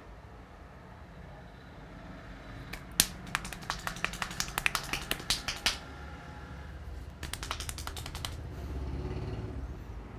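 Two runs of quick, sharp percussive taps from a head massage: hands striking the head in rapid succession. The first run lasts about three seconds, and a shorter run comes about seven seconds in.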